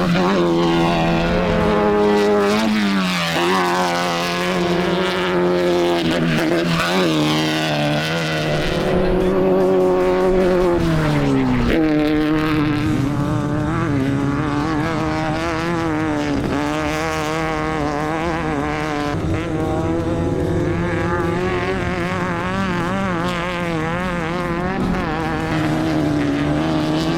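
Off-road race vehicle engine running hard at high revs, its pitch wavering up and down with the throttle and sliding down steeply about twelve seconds in.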